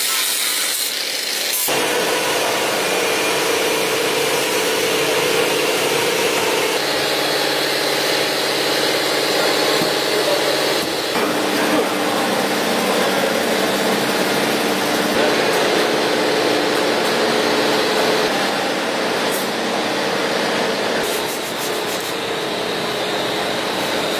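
Angle grinder cutting the steel underbody of a van's body shell: a steady motor whine over a grinding hiss. Its pitch and character shift abruptly about two, seven and eleven seconds in.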